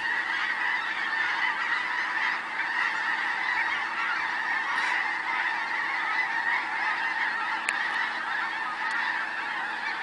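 A very large flock of birds calling all at once: a dense, continuous wall of overlapping calls with no single voice standing out.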